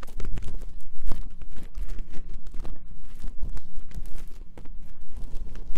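Close-miked ASMR ear cleaning: irregular scratching, rubbing and clicking of tools against the microphone, over a steady low rumble.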